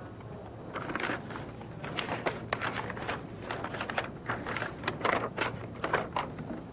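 A sheet of notebook paper rustling and crinkling as it is handled and crumpled, in quick irregular crackles.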